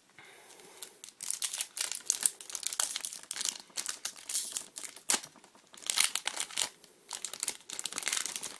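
Foil Yu-Gi-Oh booster pack wrapper crinkling as it is handled, a dense run of fast irregular crackles starting about a second in.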